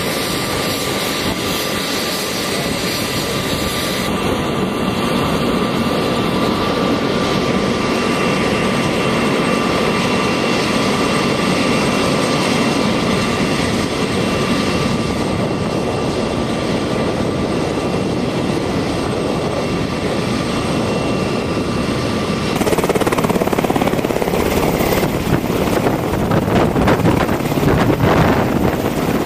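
UH-60 Black Hawk helicopter running, a steady turbine whine over the rotor and engine noise. About 22 seconds in the sound grows louder and rougher, with a rapid rotor beat, as the helicopter lifts off.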